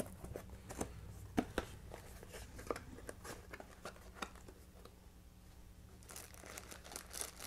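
Small cardboard box being opened by hand: light clicks and taps as the flaps are pulled open, then a rustling crinkle starting about six seconds in as the packing inside is handled.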